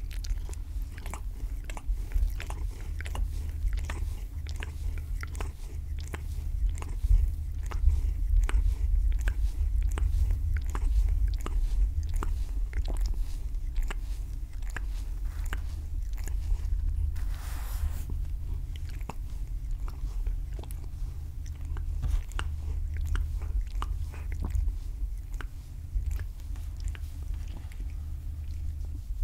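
Long-haired cat grooming itself close to the microphone: a long run of quick licking and nibbling clicks at its fur, over a steady low rumble.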